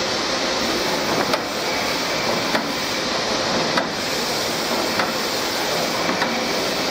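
Automatic labelling machine for pulp egg trays running: a steady mechanical whir from its conveyor and motors, with sharp clicks every second or so as trays are fed along.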